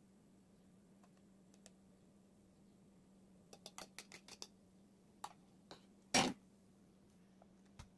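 A metal fork clicking and scraping against a plastic bowl in a quick run of taps as the egg mixture is scraped out, then one louder, short knock about six seconds in as the bowl and fork are set down on the counter. A faint steady hum sits underneath.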